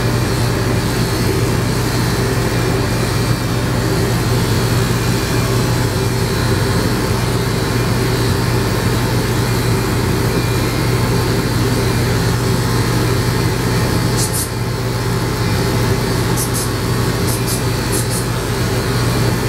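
Electric dog-grooming clippers with a guard comb running steadily with a constant buzzing hum as they trim a small dog's face. A few brief high clicks come about two-thirds of the way in and again near the end.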